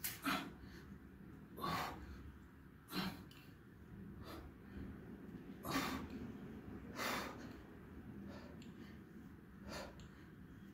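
A man breathing hard through his nose and mouth while working out with a dumbbell: short, sharp breaths, one every second or two, irregularly spaced.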